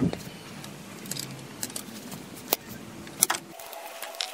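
Metal hand tools clinking and clicking as a ratchet and wrench work the alternator's mounting bolts loose: scattered sharp metallic clicks and knocks, the loudest about three seconds in.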